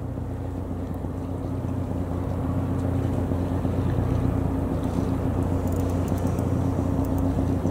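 Steady low hum of an engine running at idle, with a level wash of noise over it, growing slightly louder over the first few seconds.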